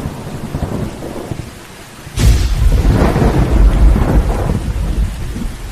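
Thunderstorm sound effect: rain hiss and a low rumble, then a sharp thunderclap about two seconds in that rolls on loudly and slowly fades.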